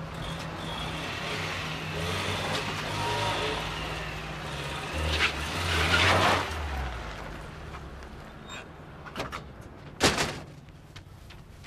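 Small car engine running as a Saipa Pride pulls slowly out through a gateway, loudest about six seconds in, then fading. About ten seconds in, a sheet-metal gate bangs shut once, with a few lighter clicks and knocks just before.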